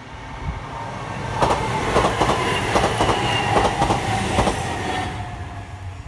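Kintetsu Minami-Osaka Line electric train passing the level crossing, its wheels clacking over the rail joints in a quick run of knocks that swells and then fades. The crossing's warning bell rings steadily underneath.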